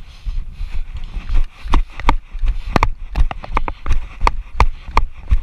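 Running footsteps, about three strides a second, each footfall a dull thud with a sharp click.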